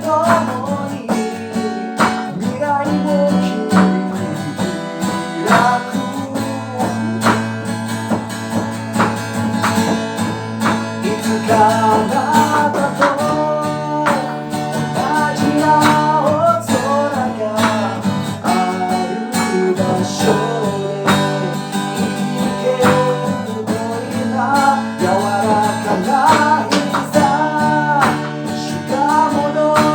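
A band playing a song, with guitar carrying a melody over steady drum hits.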